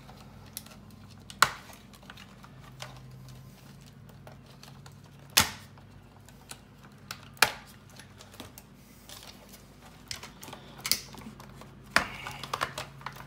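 Irregular sharp plastic clicks and taps from wire connectors and parts being worked loose inside a robot vacuum's opened plastic housing, with a busier run of clicks near the end. A faint steady low hum runs underneath.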